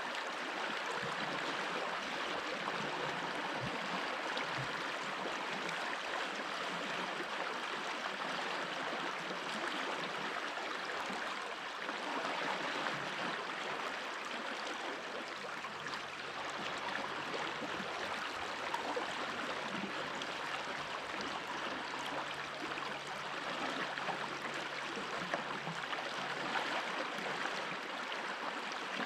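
Stream water flowing steadily, an even rushing and gurgling with no breaks.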